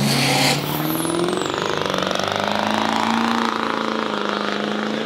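Diesel Chevrolet Silverado pickup launching down a drag strip: the engine note climbs over the first couple of seconds and then holds at high revs. A short hiss comes right at the start, and a whistle falls in pitch about a second in.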